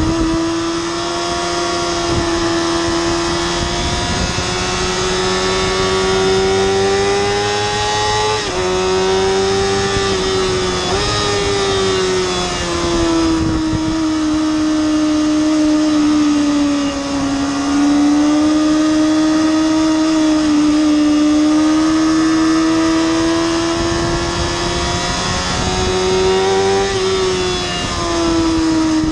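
2007 Kawasaki ZX-6R's inline-four, with stock headers and cat and a Two Brothers slip-on can, running at high revs under way. The note is a high, steady wail that drifts up and down with the throttle, with a few sudden pitch changes at gear changes: about a third and again near the end.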